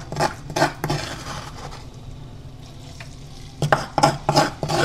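Freshly pounded spice paste frying in hot oil in a pan, sizzling steadily while a spatula stirs and scrapes it in quick strokes, at the start and again from about three and a half seconds in.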